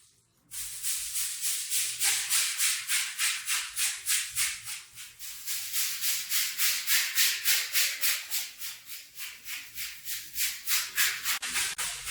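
Stiff brush scrubbing a wet rug in quick back-and-forth strokes, about four a second, starting about half a second in.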